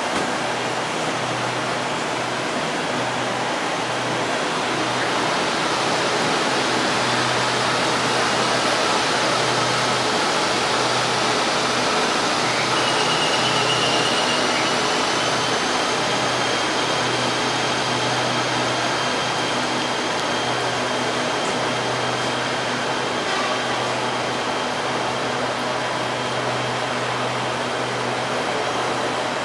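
Steady blowing hum of trains standing at a station platform: the roof air-conditioning and onboard equipment of an electric train and air-conditioned coaches. A thin high whine comes in about halfway through.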